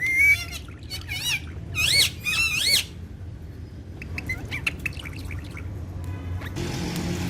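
Parrots calling: a few loud, harsh calls in the first three seconds, then softer chirps between about four and five seconds in. A steady low rumble comes in near the end.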